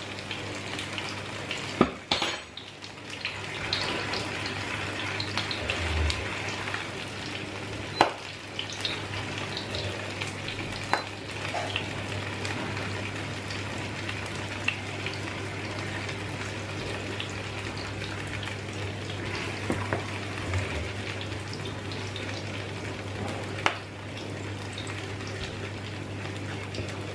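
Spinach purée sizzling in a stainless steel pot while being stirred with a wooden spoon, with a few sharp knocks of utensils against the pot over a steady low hum.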